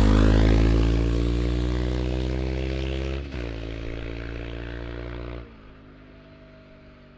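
Honda CB500-series parallel-twin with a Yoshimura R-77 exhaust riding away just after a close pass-by: the engine note is loudest at first and fades with distance, with a brief break about three seconds in as the rider shifts up. About five seconds in it drops away sharply to a faint note.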